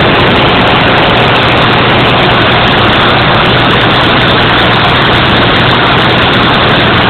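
Aqua-Dyne ultra-high-pressure water-jetting equipment running at about 40,000 psi: a loud, steady, unbroken roar with a constant low hum underneath.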